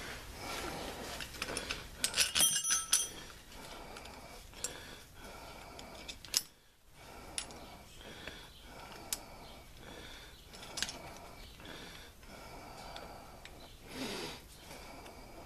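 Small metal clicks and clinks as a steel bracket and its fastener are fitted by hand onto a riding mower's hydrostatic transaxle, with a brighter ringing metal clatter about two to three seconds in.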